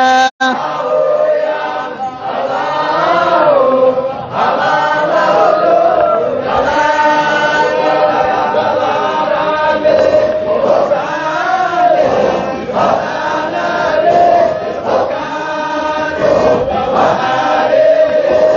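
Men's voices chanting a Qadiriya Sufi dhikr together, led over a microphone, a repeated sung phrase with long held notes. The sound drops out for an instant just after the start.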